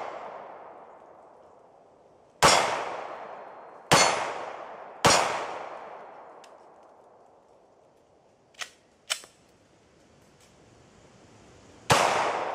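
Four pistol shots from a Glock 20 fired through a .40 S&W conversion barrel: three within about three seconds, then a pause broken by two faint clicks, then a fourth shot near the end. Each shot rings on and dies away over more than a second.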